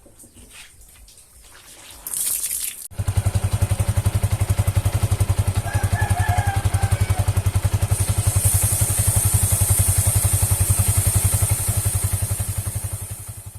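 Yamaha MX King 150 motorcycle's single-cylinder four-stroke engine running steadily with a rapid even pulse, after a short noisy burst about two seconds in; it cuts off suddenly near the end.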